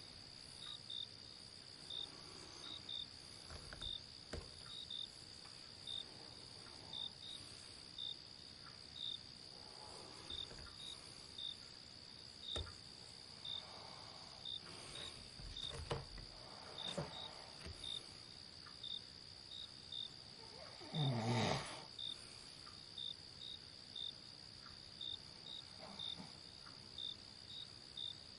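Night insects give a steady high drone and short chirps every second or so. A person snores once, loudly, about three-quarters of the way through.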